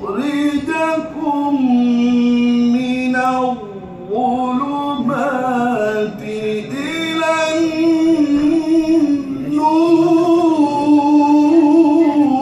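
A man reciting the Quran in the melodic tajweed style, drawing out long, ornamented notes that rise and fall, with short breaks about four and nine and a half seconds in.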